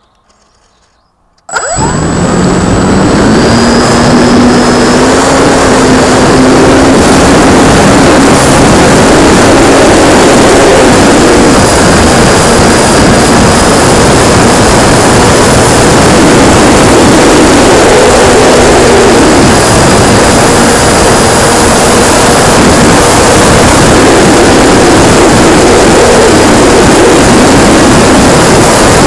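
Radio-controlled P-51D Mustang model's motor and propeller heard from the plane itself, very loud and harsh with air rush. It comes up suddenly about a second and a half in as the throttle opens for take-off, then climbs in pitch and rises and falls with the throttle through the flight.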